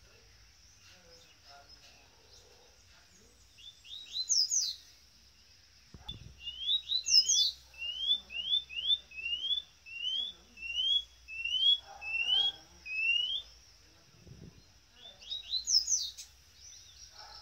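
White-bellied seedeater (chorão) singing: a few quick sharp high phrases, then a run of about a dozen short rising whistled notes at roughly two a second, and another sharp phrase near the end. A faint steady high tone lies underneath.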